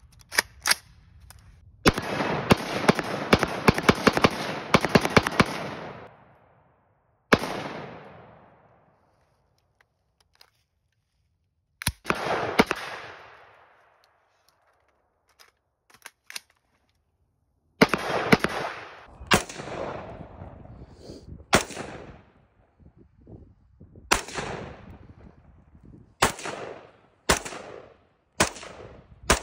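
Rifle gunfire. About two seconds in comes a fast string of shots lasting about four seconds. Then three single shots several seconds apart, each with a long echoing tail, and then a run of shots about a second apart.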